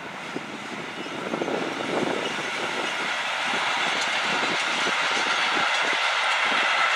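Electric freight train passing, hauled by a Class 186 locomotive: its covered sliding-wall wagons roll by with the wheels clicking over the rail joints, and the rolling noise grows steadily louder as the wagons come closer.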